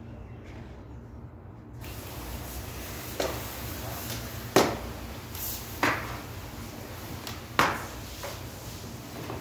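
Garden hose spray nozzle switched on about two seconds in, giving a steady hiss of water jetting onto wet floor tiles, with four short sharp swishes over it.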